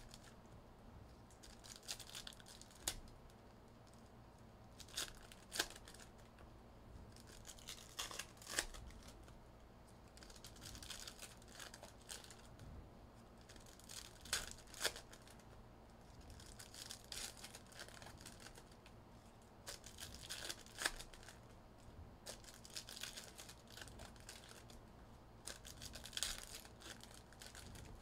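Plastic wrapping on sealed trading-card packaging being torn and crinkled open by hand, in scattered sharp crackles and short rustling tears that come and go.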